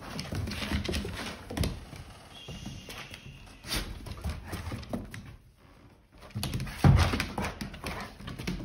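An adult golden retriever and a golden retriever puppy scuffling on a hardwood floor: paws and claws clatter and scrabble on the boards amid bumps of their bodies. The activity eases off for a moment just before six seconds in, and the loudest thump comes about seven seconds in.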